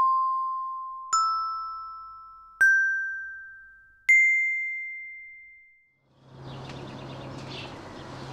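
A four-note intro chime: bell-like tones struck one after another, each higher than the last and each ringing out. About six seconds in, a steady background with a low hum and a few short bird chirps fades in.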